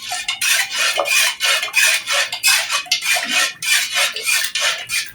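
Spoon stirring uncooked rice with water and salt in a pot, a quick run of scraping strokes at about two to three a second.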